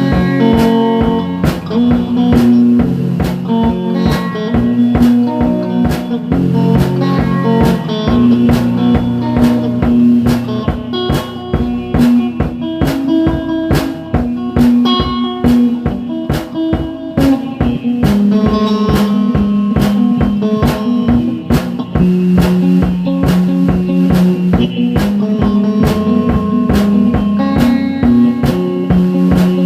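Background music: a blues-rock track with guitar and a drum kit keeping a steady beat.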